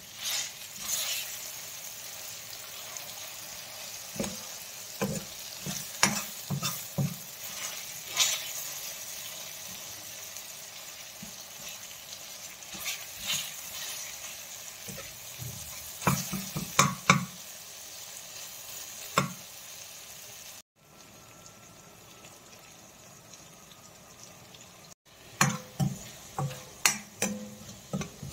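Onion-tomato masala sizzling in a stainless steel wok while a steel spoon stirs it, with repeated clicks and knocks of the spoon against the pan. For a few seconds in the last third the stirring stops and only a quieter sizzle is left, then the spoon knocks again.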